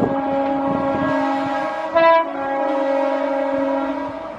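Horn of a passing Indian Railways electric locomotive sounding one long steady blast, with a brief louder burst about two seconds in. The horn stops and the train noise fades near the end.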